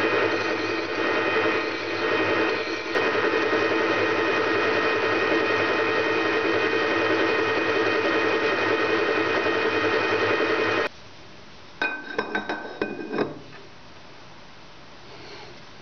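Metal lathe running with a steady motor hum while a file and then an abrasive pad are held against the spinning steel backplate. The sound cuts off sharply about eleven seconds in, followed by a short run of metallic clinks and knocks as steel parts are handled.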